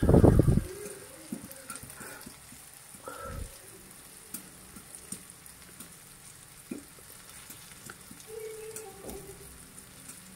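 Prawns, garlic and curry leaves frying in oil in a pan, with scattered small pops and crackles over a faint steady hiss. A loud low thump comes right at the start and a softer one about three seconds in.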